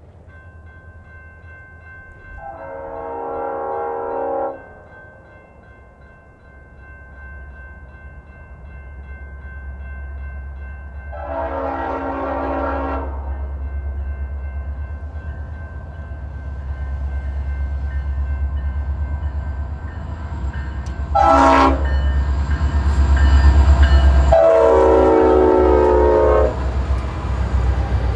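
A diesel freight locomotive approaches and passes, sounding its multi-chime air horn in two long blasts, one short and one long: the standard grade-crossing signal. Its low engine rumble grows as it nears and is loudest just before the last blast, then freight cars roll by.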